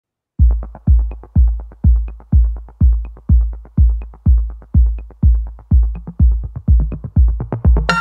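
Electronic dance music with a steady kick drum at about two beats a second and light ticks between the beats, starting after a brief silence; near the end a cymbal crash and synth chords come in.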